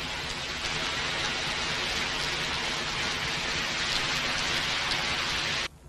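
Steady rain, an even hiss with no distinct drops, cutting off suddenly near the end.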